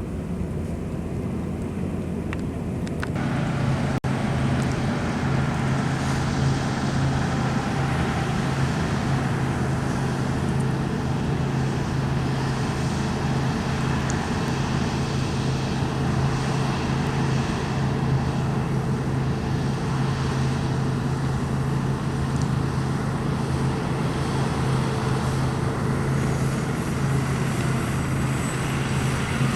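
Diesel engine of heavy harvest machinery running steadily with a low drone and mechanical noise, getting louder about three seconds in.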